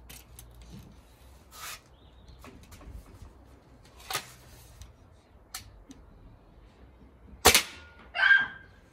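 A Hatsan Striker Edge .22 spring-piston air rifle fires once, a single sharp shot about three-quarters of the way through, after a few faint clicks. Under a second later comes a shorter, rougher sound.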